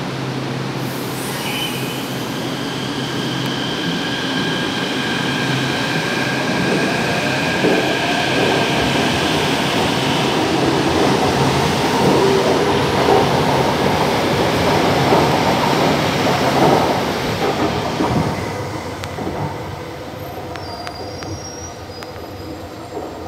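Electric metro train of São Paulo Metro Line 5's Frota P fleet pulling out of the station: a steady electric whine from its traction equipment over the rolling of steel wheels on rail. The sound builds to a peak and then fades as the train moves away.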